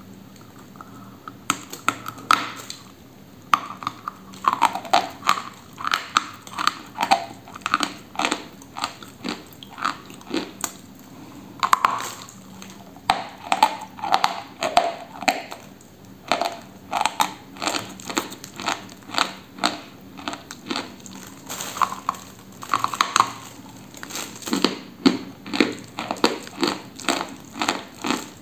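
A person biting and chewing dry lumps of white chalk: a run of sharp crunches, a few each second, with short pauses between bites.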